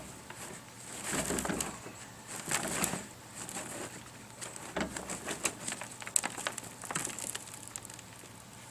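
Hands rummaging through a dumped pile of loose potting soil in search of potatoes: soft crumbling and rustling in several short bursts, with small clicks.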